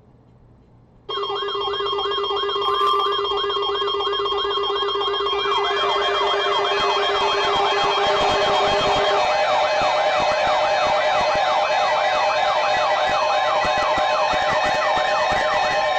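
Several electronic siren and alarm sounds layered together, starting suddenly about a second in. A fast yelping siren sweeps up and down about three times a second over steady alarm tones, and more tones join about five seconds in.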